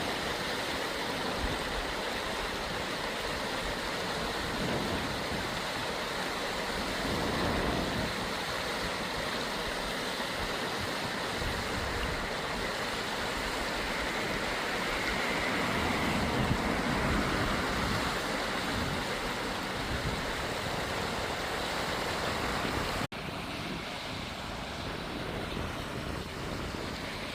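Mountain valley stream rushing steadily over rocks. About 23 seconds in the sound cuts out for an instant and comes back slightly softer and less hissy.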